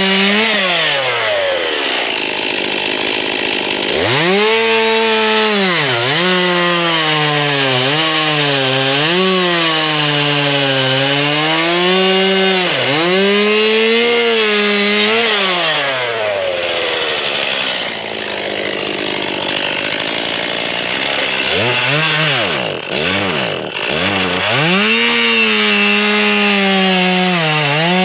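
Gas chainsaw bucking logs: running at full throttle, its pitch dipping again and again as the chain bites into the wood. It drops to idle twice between cuts, at the start and again past the middle, and revs back up each time.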